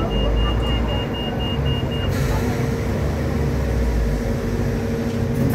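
Hong Kong Light Rail Phase III tram car running, heard from on board, with a steady electric hum and low rumble. A rapid, high-pitched beeping stops about two seconds in, and a brighter hiss sets in.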